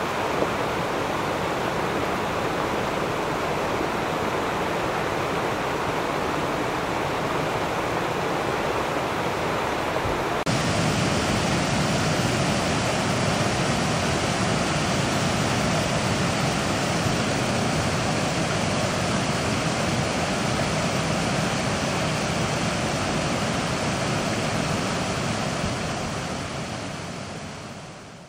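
Muddy flash-flood water rushing down a creek channel: a steady, loud rush of running water. About ten seconds in it changes to a louder, fuller rush, then fades out near the end.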